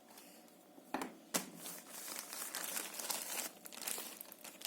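Two sharp knocks about a second in, then packaging crinkling and rustling as it is handled.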